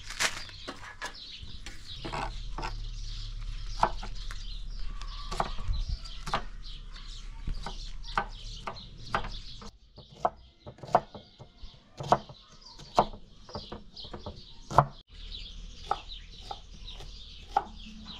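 Knife blade clicking against a metal tray as boiled eggs are sliced on it, sharp taps about once a second in the second half, with hens clucking and small birds chirping.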